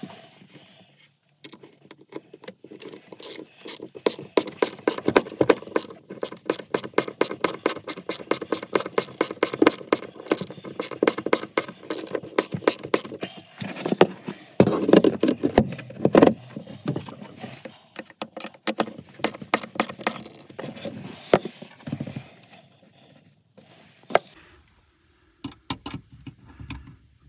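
Ratcheting hand screwdriver clicking rapidly and evenly in long runs, with a few louder knocks about halfway through; the clicking thins out near the end.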